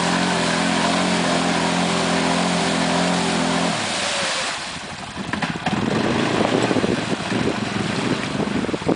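Arctic Cat 700 Mud Pro ATV engine running at a steady pitch, cut off abruptly about three and a half seconds in. Then comes rougher, uneven engine noise that rises and falls.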